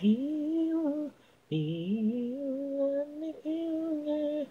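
Unaccompanied sung vocals from an isolated a cappella track: a male voice holding sustained, gliding notes. A short phrase breaks off about a second in, and after a brief pause a longer held phrase follows.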